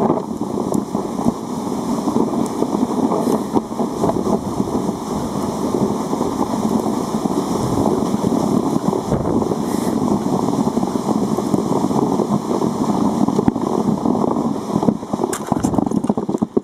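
Sledge sliding fast over snow: a steady scraping rush with small crackles, mixed with wind buffeting the microphone.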